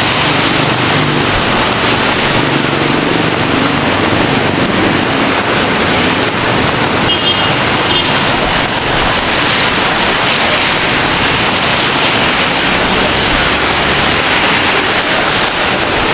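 Steady rain hiss mixed with low city traffic rumble. A faint short high beeping sounds about seven seconds in.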